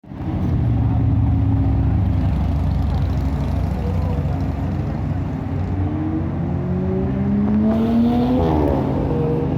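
Lamborghini Gallardo's V10 engine running with a strong, deep rumble. From about halfway its pitch climbs steadily for a few seconds, then drops back sharply near the end.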